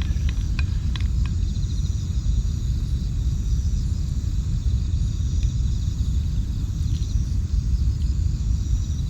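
Steady low outdoor rumble, with faint high chirping above it and a few light clicks in the first second and a half.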